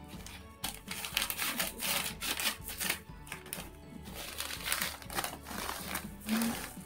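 Yellow paper padded mailer crinkling and rustling in irregular strokes as it is cut with scissors and pulled open, over background music.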